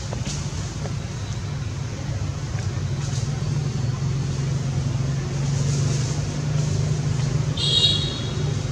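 Steady low vehicle rumble, with a brief high-pitched squeak near the end.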